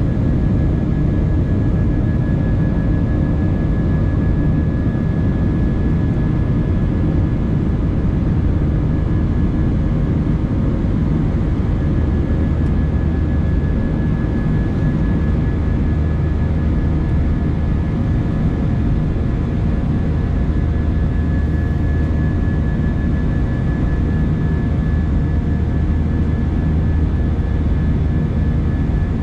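Airbus A319 cabin noise in the climb after takeoff: steady jet engine and airflow rumble heard from a window seat, with a thin high whine running through it. The low hum grows a little stronger about halfway through.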